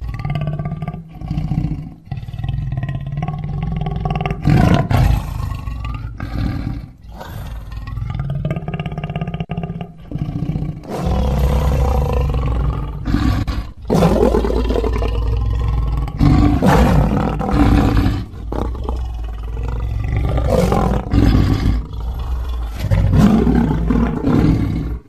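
Lion-like roars and growls in a string of calls with a deep rumble underneath, broken by many sudden cuts. This is a sound-designed reconstruction of the extinct American lion's voice, not a recording of a living animal.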